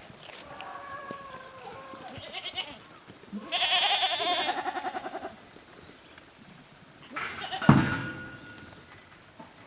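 Goats bleating: a wavering call near the start, then a louder, quavering bleat of about two seconds, and a shorter call with a sharp thump near the end.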